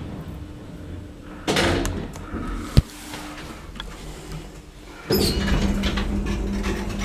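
Lift's automatic sliding doors moving about a second and a half in, followed by a sharp click. A steady low hum starts about five seconds in.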